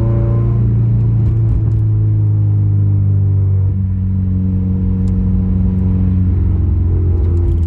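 Subaru WRX's FA20DIT turbocharged flat-four engine running as the car is driven, its note shifting about halfway through. The car is in limp mode with a cylinder-3 misfire code stored, yet it drives normally.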